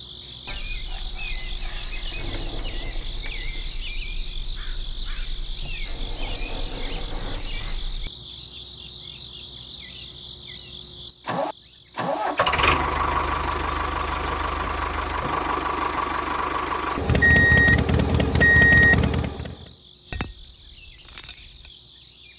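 Single-cylinder diesel power tiller engine sound, starting and running in two stretches, the second louder, with two short high beeps near its end, over a steady chirring of crickets.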